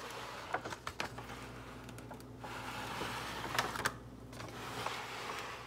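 Light, uneven crackling from an aluminium foil roasting pan holding a just-roasted honey-glazed chicken breast, with scattered sharp clicks and two brief lulls.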